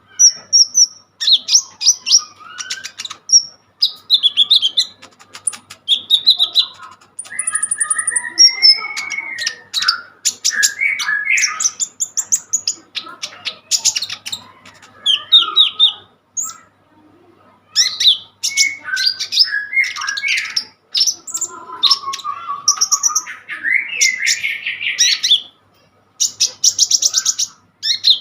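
A songbird kept as a 'konin' singing in full, non-stop song: a rapid, varied stream of chirps, trills and whistled phrases with a couple of short breaks. This is the energetic 'gacor' song that bird keepers use as master audio to teach other birds.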